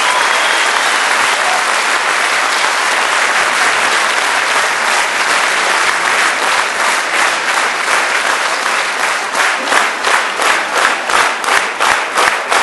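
Theatre audience applauding. About halfway through, the applause settles into steady rhythmic clapping in unison.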